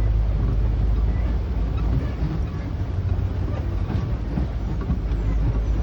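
Safari tour vehicle driving, heard from on board: a steady low engine and road rumble with scattered light rattles and clicks.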